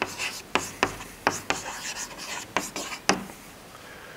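Chalk writing on a blackboard: a quick series of short scrapes and taps, stopping about three seconds in.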